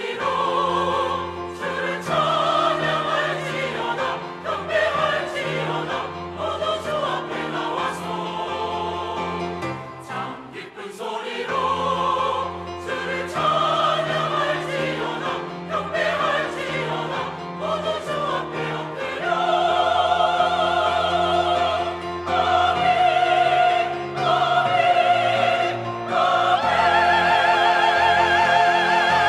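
Church choir singing an anthem over steady low held notes. Over the last ten seconds it swells to long, loud held chords sung with vibrato.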